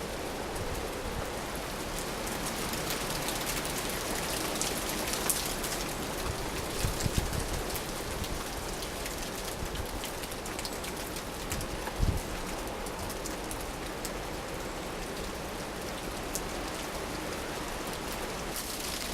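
Steady rain falling in a coastal winter storm, a fine patter of drops. A few short low thumps, the loudest about 12 seconds in, break through the rain.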